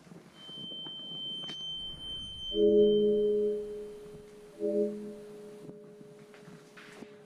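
Eerie ambient music: a thin, high held tone, then two sudden low chords about two seconds apart, each ringing on like a struck bowl, with one tone sustained after them.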